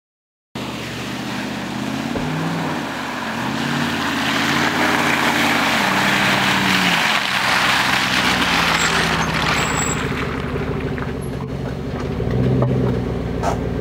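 Jeep Grand Cherokee SUV driving through mud, its engine revving up and down several times, with a loud rushing hiss building through the middle. The engine then settles to a steadier drone.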